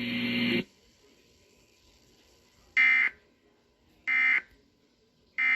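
A steady tone cuts off about half a second in. Then come three short, harsh digital data bursts of an Emergency Alert System end-of-message code, about 1.3 seconds apart, signalling the end of the flood warning.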